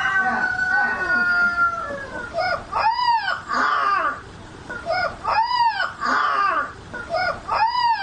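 A pet animal's calls: a long drawn-out cry, then three loud arching cries that rise and fall in pitch, with shorter ones between.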